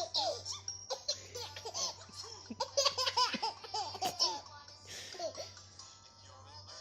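Baby laughing hard in quick repeated bursts of rising and falling giggles, thickest in the middle and tailing off about five seconds in.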